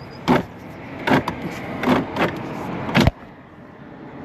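Length of guttering being shoved along its brackets in a series of short scraping knocks, roughly one a second, with a heavier knock about three seconds in.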